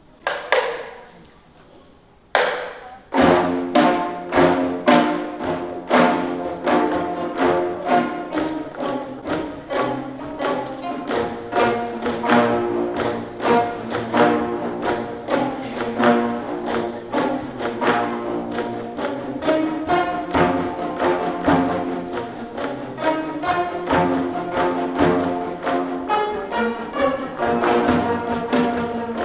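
Gayageum ensemble, some twenty Korean plucked zithers with janggu drum, opening a fast, driving piece: two single strong strokes about two seconds apart, then the whole ensemble plucking a busy rhythmic passage together.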